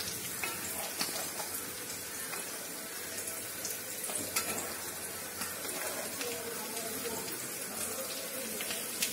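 Hot sunflower oil sizzling steadily in a kadai, with frequent small pops and crackles from the masala bits left in it after frying bitter gourd pieces.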